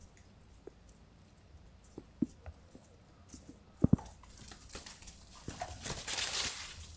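A few scattered soft knocks, a loud double thump about four seconds in, then a couple of seconds of scraping, rustling noise that fades near the end.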